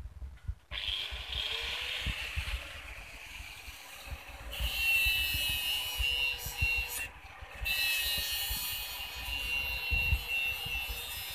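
Electric angle grinder switched on about a second in and spinning up, then grinding the edge of a steel sickle blade with a high screech from about four and a half seconds. The screech breaks off briefly around seven seconds and starts again. The grinder is sharpening and thinning a very dull, thick sickle.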